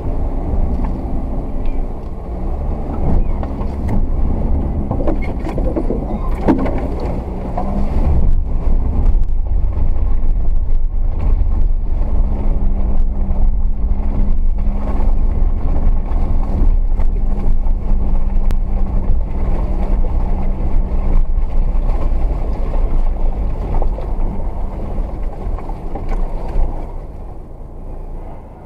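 Dacia Duster driving slowly over a rutted, muddy dirt track, heard from inside the cabin: a steady low engine and road rumble with scattered knocks from the bumps. It drops off near the end as the car slows.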